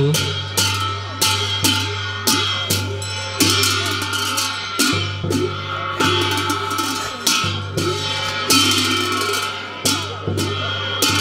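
Tibetan Buddhist ritual music: brass hand cymbals clashing in an uneven beat, a stroke every half second to a second, with a large frame drum, over a low steady drone.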